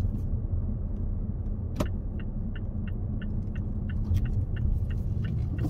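Steady low rumble of a car's engine and road noise heard inside the cabin. About two seconds in there is a single sharp click, then an even ticking about three times a second, like a turn-signal indicator.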